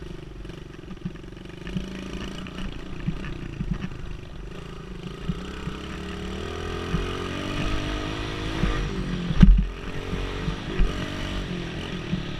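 Dirt bike engine running under way, its pitch climbing with throttle through the middle and rising again near the end. Several sharp knocks come from the rough ground, the strongest about three quarters of the way through.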